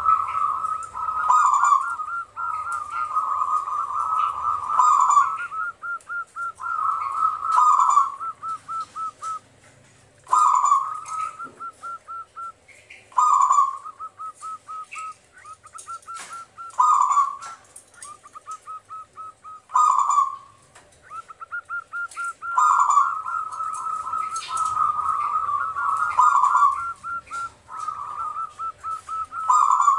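Zebra dove singing its song over and over: each phrase is a loud coo followed by a run of quick staccato notes, repeated roughly every three seconds. Faint high chirping from another small bird sounds behind it.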